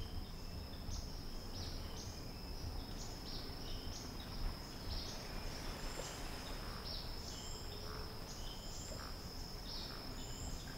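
Tropical ambience: insects trilling in one steady high note, with short high chirps repeating about twice a second over it.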